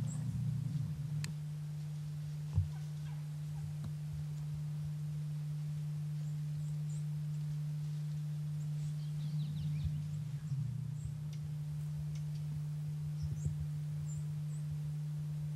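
A steady low electrical hum runs under faint high chirping calls from wild turkeys in the trees, the calls clustering about nine to ten seconds in and again near the end.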